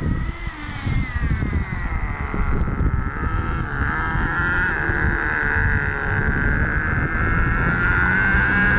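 Homemade RC drag car's small two-stroke engine running at a high buzzing pitch. The pitch falls and rises over the first few seconds, then settles into a steady idle from about four seconds in, over an uneven low rumble.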